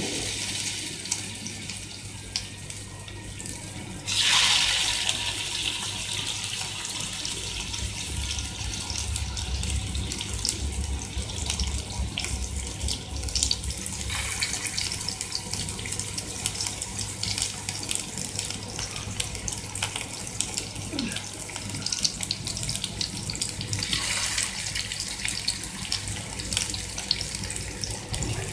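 Chicken burger patties sizzling in hot oil in a nonstick grill pan. The sizzle surges louder about four seconds in and again near the end as more patties are laid in.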